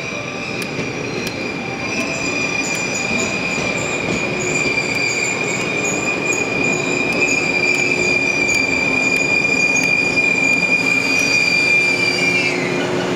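Wheel squeal from a yellow four-car electric train as it moves slowly along the platform. A single steady, high-pitched squeal rides over the rumble of the wheels on the rails and grows louder. Near the end it slides down a little and cuts off.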